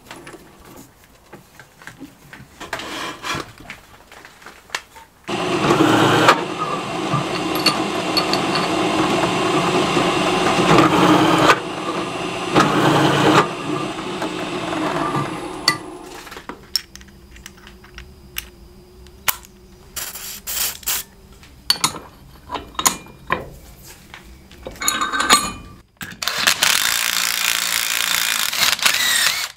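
Metal clicks of a drill press chuck being handled, then the drill press running and cutting into a steel part for about ten seconds from about five seconds in. Near the end a power drill drives a tap into a steel part clamped in a bench vise for a few seconds.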